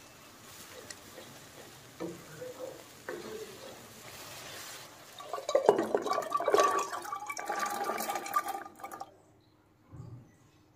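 Soaked chickpeas and their water tipped from a bowl into a metal pressure cooker, splashing and clattering against the pot for about four seconds, about halfway through. Softer stirring and liquid sounds come before it.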